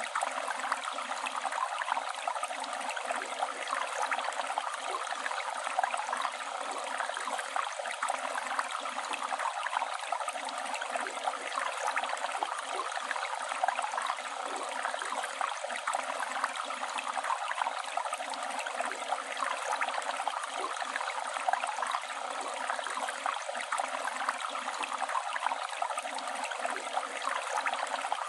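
Flowing river water rushing and burbling steadily, with a fine splashing texture and no pauses.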